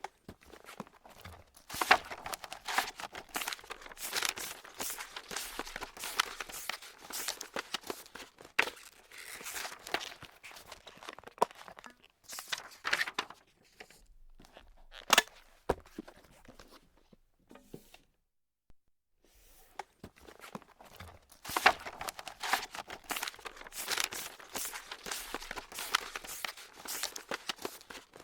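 Paper being crumpled and crinkled by hand: a dense run of crackles, with a pause of about two seconds around two-thirds of the way in, then crumpling again.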